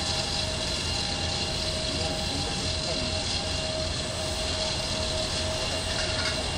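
Jet airliner turbine engines running at low power: a steady whine over a low rumble, without a break.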